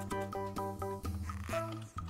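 Background music: an instrumental tune of quick, short notes over a steady bass line.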